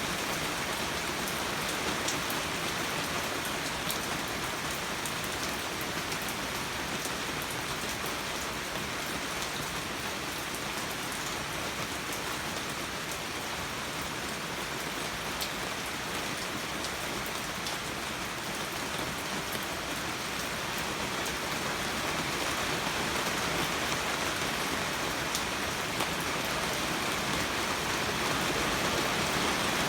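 Steady rain falling on plants and surfaces, a continuous hiss with scattered sharp drop ticks, growing a little heavier in the last several seconds.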